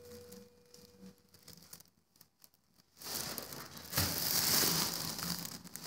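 Near silence for about three seconds, then a steady rustling, crinkling noise of a phone being handled and moved about, with a single knock about four seconds in.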